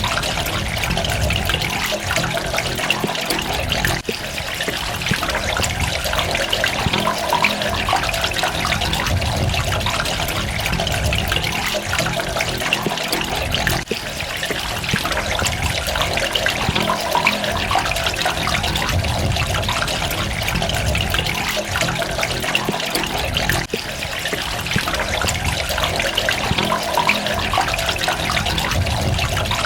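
Steady running water, a dense splashing trickle of falling water and droplets, with brief dips in level about every ten seconds.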